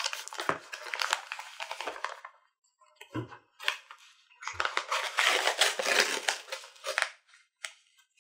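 Paper parcel wrapping rustling as the parcel is handled and set down with a knock. Then scissors cut through the thick wrapping paper in a long crunching stretch lasting a couple of seconds.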